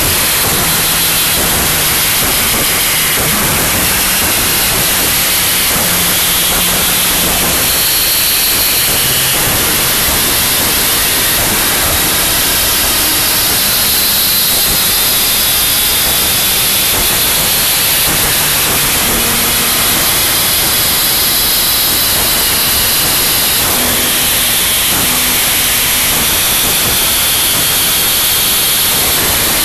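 Harsh noise wall: a loud, dense, unchanging wall of static, with faint low and high tones shifting every second or two beneath it.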